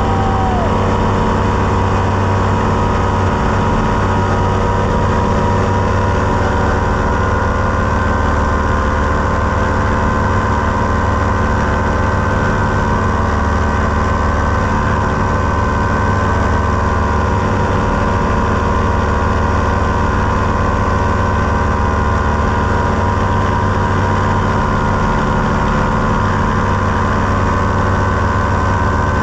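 Paramotor trike's engine and propeller running steadily, one even drone that holds the same pitch throughout.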